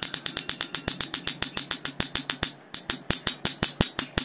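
Small hammer tapping rapidly on the metal oil filler plug of a submersible pump motor, about eight light strikes a second, each with a high ringing note, with a brief pause a little past halfway. The plug is being driven home to close the oil-filling hole.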